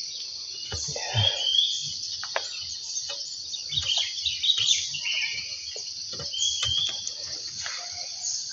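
Steady high-pitched insect buzz with birds chirping over it, broken by a few light clicks and knocks.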